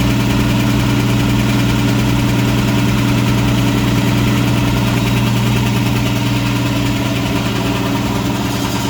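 A homemade electric air compressor with two-stage piston pumps running steadily under load as it pumps up its tanks, with a strong low hum.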